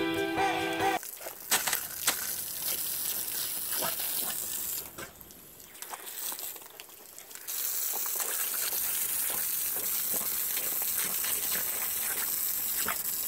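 Garden hose spray nozzle jetting water onto concrete: a steady hissing splatter that drops away for a couple of seconds midway and then comes back strong.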